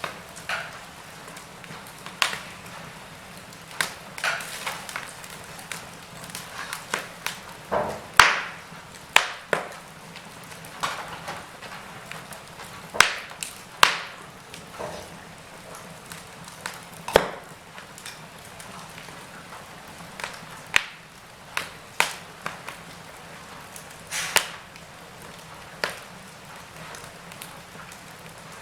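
Wood fire burning in a fireplace, crackling with irregular sharp pops and snaps over a soft steady hiss; the loudest pop comes about eight seconds in.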